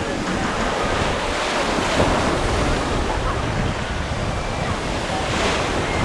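Atlantic surf washing onto the beach in a steady rush, with wind buffeting the microphone.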